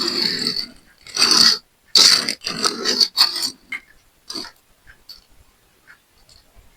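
Hot Wheels cardboard-and-plastic blister pack being ripped and crinkled open: about five short rasping tears in the first three and a half seconds, then a few faint clicks.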